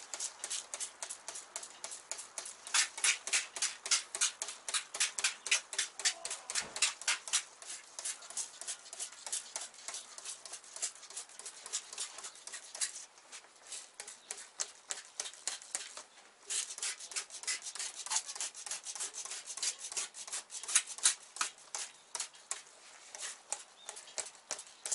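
A hand trigger spray bottle squeezed over and over, spritzing degreaser onto greasy engine parts. The short hissing squirts come at about three a second, with a brief pause partway through.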